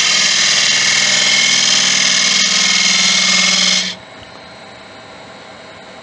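Turning tool cutting the rim of a spalted beech vase spinning on a wood lathe: a loud, steady hiss of the cut that stops abruptly about four seconds in, leaving the lathe running faintly.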